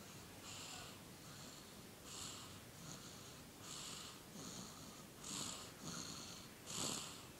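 A sleeping baby snoring softly: quick, hissy breaths in and out with a faint whistle, a full breath about every second and a half. The loudest breath comes near the end.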